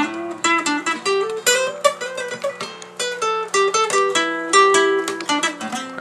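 Acoustic guitar being picked: a quick melodic run of single plucked notes, several a second.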